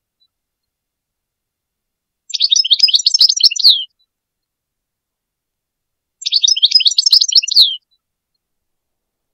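European goldfinch song: two quick twittering phrases of about a second and a half each, a few seconds apart.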